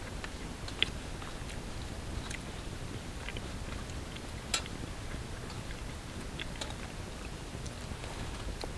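Small wood campfire crackling, with scattered sharp pops, two of them louder, about a second in and again about four and a half seconds in, over a low steady background hiss.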